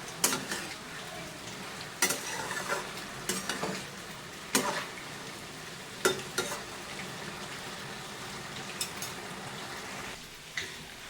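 Bottle gourd curry sizzling in a pan while it is stirred, with a spoon knocking and scraping against the pan about eight times. The steady sizzle drops lower near the end.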